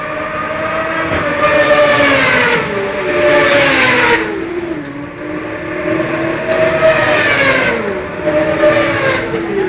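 Supersport racing motorcycle engines at high revs. Their pitch and loudness swell and fall away in about four waves as the bikes run past.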